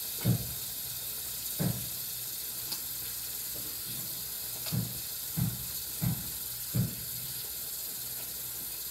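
Faucet running steadily into a bathroom sink, with several short dull thumps through it.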